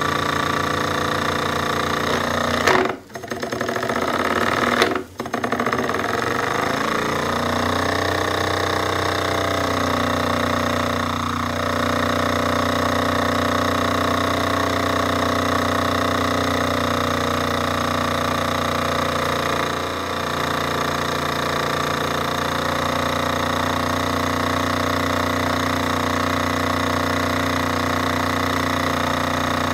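Jensen 25G model steam engine running steadily at speed, a fast, even mechanical chatter, as it belt-drives its small generator. The sound breaks off briefly twice, about three and five seconds in.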